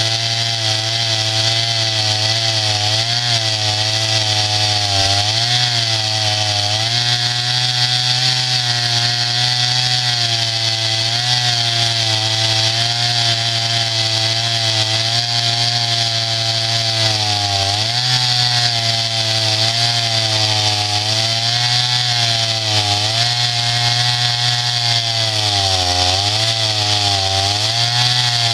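Norwood portable band sawmill running and cutting, its engine's pitch sagging briefly every few seconds as the blade works through the log.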